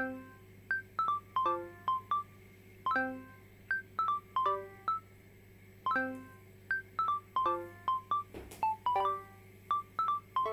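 Background music: a tune of short plucked notes, each fading quickly, with its phrase repeating about every three seconds.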